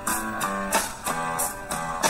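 Instrumental music: guitar strumming chords to a steady beat, no singing.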